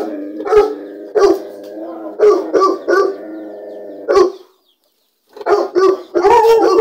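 Caged dogs barking: a run of sharp barks, about two a second at times, over a long, steady, drawn-out cry. The sound cuts out for under a second about four and a half seconds in, then the barking and crying resume loudly.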